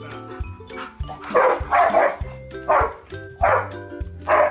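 Dog barking repeatedly, sharp barks every half second to a second, over background music with a steady bass line.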